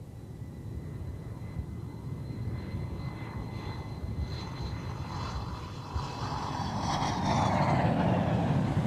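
F-15 Eagle's twin Pratt & Whitney F100 turbofans on a low approach with gear down: a jet whine and rumble that grows steadily louder as the aircraft closes in. Near the end, at its loudest, the pitch drops as the jet passes.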